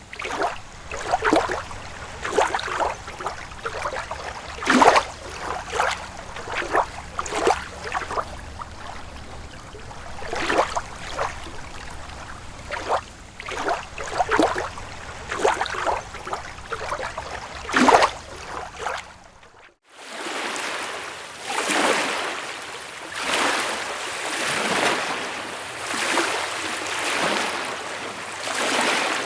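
Small lake waves lapping and splashing in separate slaps. About two-thirds through, the sound breaks off briefly and changes to gentle lake waves washing onto a beach in slow, overlapping swells.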